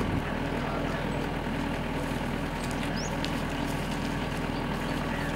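A tractor engine idling steadily, a low even hum, with a few faint clicks and one short high chirp about three seconds in.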